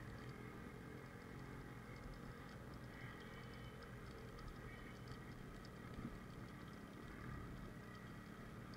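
Yamaha RX100's single-cylinder two-stroke engine running steadily at low speed on a rough trail.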